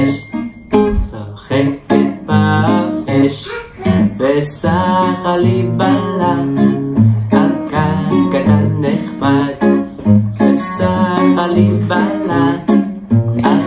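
Music: a strummed acoustic guitar with a singing voice.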